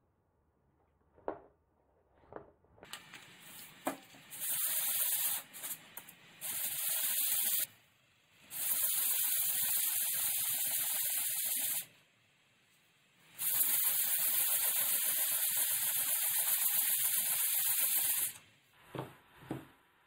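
A wooden panel rubbed back and forth by hand, face-down on a sheet of sandpaper laid flat on the bench, giving a steady raspy hiss in three long spells with short pauses between them. A few light knocks come at the start and near the end as the wood is handled and set down.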